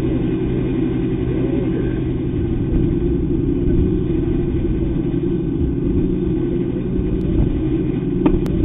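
Steady machine hum with several fixed low tones and a rough rumble beneath, like a motor or engine running without change. A couple of sharp clicks come near the end.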